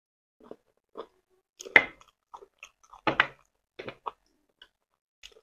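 Close-miked chewing of two people eating sweet potato in stew: irregular short smacks and clicks of the mouth, the loudest about two and three seconds in.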